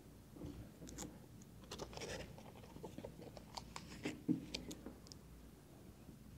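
Faint scattered rustling and light clicks of handling noise over a steady low hum, with the sharpest click about four seconds in.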